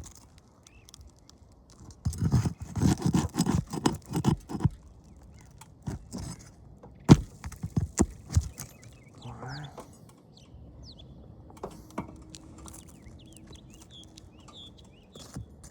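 Roof snake shingle-repair tool scraping, clattering and knocking as it works under asphalt shingles to free them, with a quick run of scraping clicks early on and one sharp knock about seven seconds in.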